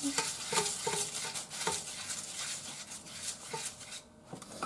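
A spatula scraping and knocking around the inside of a metal frying pan that has a little oil in it, loosening stuck bits of batter. It is a run of short scrapes with light, briefly ringing knocks, which die down after about four seconds.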